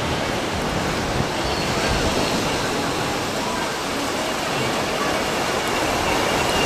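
Ocean surf on a sandy beach, a steady, even rush of noise, mixed with wind buffeting the microphone and faint distant voices.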